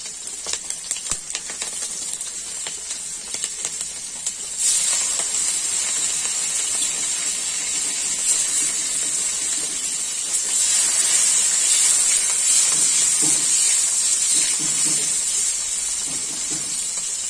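Hot oil in a kadai, with scattered crackling pops from panch phoron and green chillies frying. About five seconds in, prawns go into the oil with a sudden loud sizzle that hisses on steadily and grows louder again around ten seconds in. Spatula scrapes come near the end.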